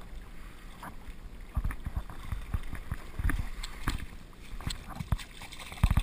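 Fast stream water rushing and gurgling around the wader's legs, broken by irregular low knocks and splashes as a landing net holding a small bass is handled at the water's edge, the loudest near the end.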